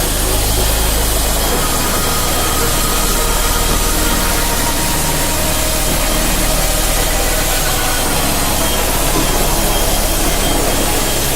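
CNC drilling-milling machine running: a steady, loud mechanical noise with a low hum and a few faint steady tones over it.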